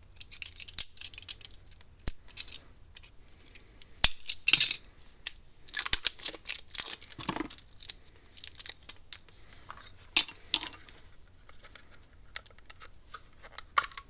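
Irregular plastic clicks, taps and short rattles from hands handling a Gallagher DVM2 fence tester while fitting a new 9-volt battery into its battery holder, with a sharp click about four seconds in and a quick run of clicks around six to seven seconds in.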